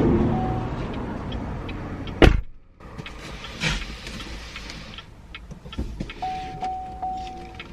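Car cabin noise while driving, ending with a sharp click about two seconds in; then a quieter stretch with light regular ticking and a short series of electronic chime beeps from the car near the end.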